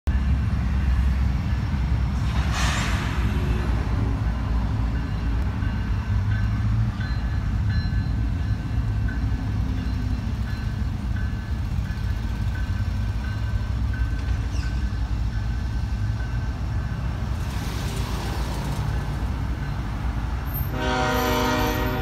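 Freight train rumbling steadily at a grade crossing. In the last second or so, the lead GE locomotive's multi-chime air horn sounds a chord.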